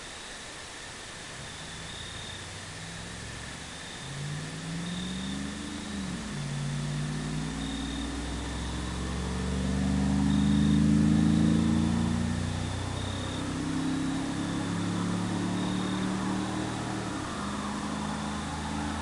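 Exhaust of a 2000 Chevrolet Silverado's 4.8 L V8, its muffler emptied of fiberglass packing, accelerating hard past the microphone. The pitch climbs and drops back at upshifts about six seconds in and again around twelve seconds, loudest as the truck passes at about eleven seconds. Crickets chirp faintly underneath.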